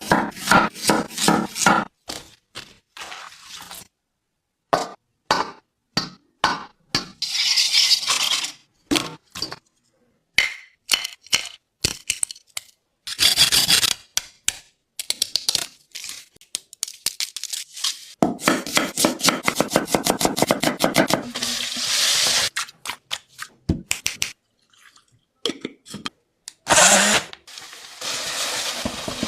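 Kitchen food-preparation sounds: runs of quick, sharp knife chops and knocks, broken by several stretches of scraping and stirring against a pan.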